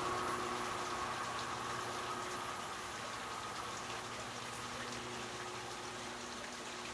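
Faint, distant train noise slowly dying away, with insects chirping high and thin over it; no train is in view.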